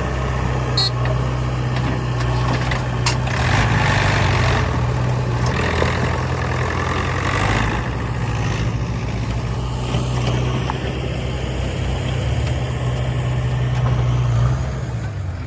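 Heavy diesel engine running steadily, with a stretch of rougher, noisier sound in the middle; the sound drops in level near the end.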